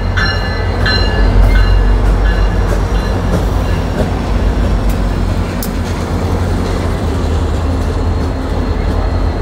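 CSX diesel locomotives and a passenger train passing close by, a loud steady rumble with wheel clicks on the rails. Repeated ringing strikes, about two a second, fade out in the first second or two.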